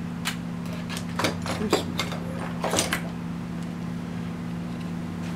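Light metallic clicks and knocks, about eight of them in the first three seconds, from engine parts and hand tools being handled during Harley-Davidson Sportster lifter block installation, over a steady low hum.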